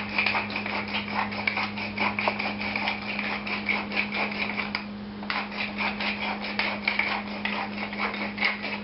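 Black pepper being put into a dish of onions and spices: a rapid run of small clicks that stops for a moment about five seconds in and then starts again.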